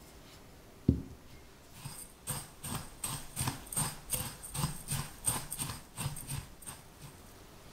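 A single low thump about a second in. Then a silicone spatula stirs dry graham cracker crumbs and sugar in a glass bowl, scraping and knocking in quick, even strokes about three times a second for some five seconds.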